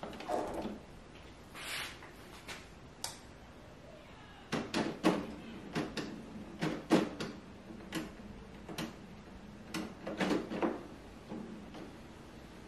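Canon PIXMA iX6820 inkjet printer starting up after being switched on. About four and a half seconds in its mechanism begins a run of clicks and clunks over a faint motor hum, lasting some six seconds, as it initialises.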